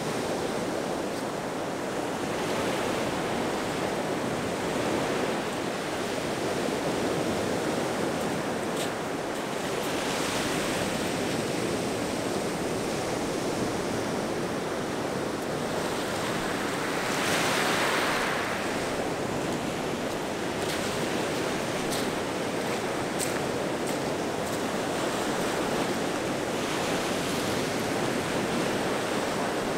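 Ocean surf breaking on a sandy beach: a steady rush of waves, with one wave washing in louder about seventeen seconds in.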